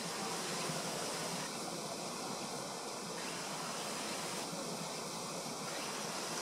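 Steady, even rushing noise with no distinct sounds in it.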